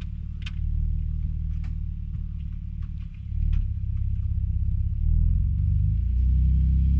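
Ford F-150 Raptor's twin-turbo EcoBoost V6 running at low revs under light throttle as the truck creeps on an icy trail with little traction. The engine note steps up in load about three seconds in and again around five and six seconds.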